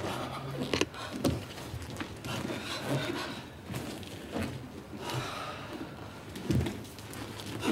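Irregular knocks, thuds and scuffs of a dancer moving on a wooden floor, with breathing.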